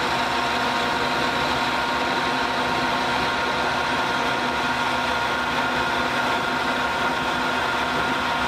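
Metal lathe running steadily: a constant machine hum and noise with a few steady whining tones, no change in speed.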